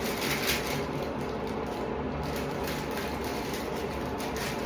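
Steady low background hum with a brief rustle of the sterile glove pack's paper wrapper being unfolded about half a second in.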